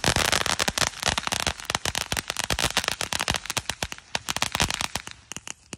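Ground fountain firework crackling: a dense run of rapid sharp pops that thins out and fades near the end.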